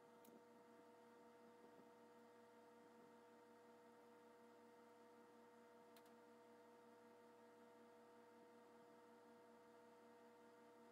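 Near silence: a faint steady electrical hum, with two faint clicks about six seconds apart.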